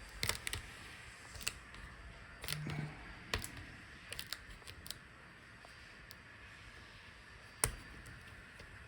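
Scattered small clicks and taps of fingers and a tool on laptop screen parts while the video cable connector is being freed, about a dozen in all. The sharpest click comes near the end.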